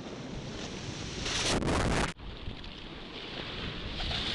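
Breaking wave and rushing whitewater heard from a camera at water level inside the surf, with water splashing over it. A loud surge of spray about a second and a half in cuts off suddenly just after two seconds, then the rush builds again.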